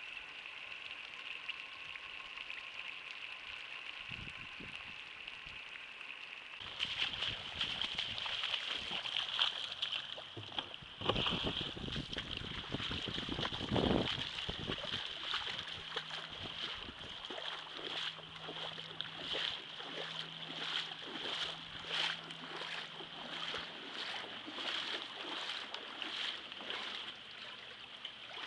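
Steady hiss of heavy rain falling on standing floodwater, growing louder about seven seconds in. In the second half come regular splashes, about one and a half a second, of footsteps wading through shallow water.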